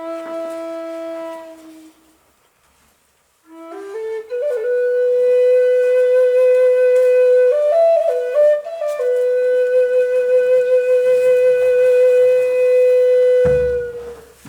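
A flute playing slowly: a held note that fades out, a short pause, then a quick rising run into a long, slightly wavering held note. A brief ornamented passage comes about halfway, then another long held note that fades near the end, with a short low thump just before it stops.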